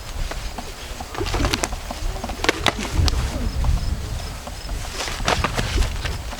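Gloved strikes and scuffling in an MMA bout: several sharp slaps land in small clusters, about a second and a half in, again near the middle and near the end, over a low rumble of movement.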